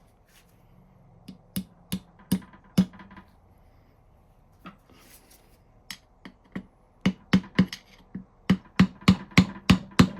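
Hammer tapping a punch to drive a part into the vise during reassembly, each blow ringing metallically. A few spaced strikes come first, then a faster run of about three strikes a second that grows louder near the end.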